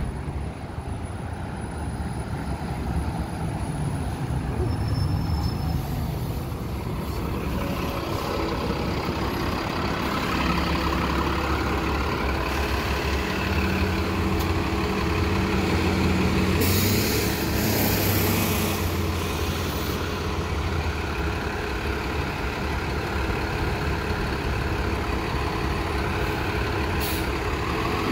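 2019 Nova Bus LFS city bus with a Cummins diesel engine approaching and pulling in to a stop, its engine growing louder as it nears. A hiss of air from the brakes comes about two-thirds of the way through, then the engine idles.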